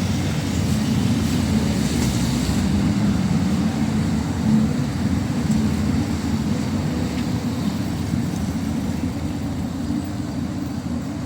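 Steady low rumble of vehicle engines in city street traffic.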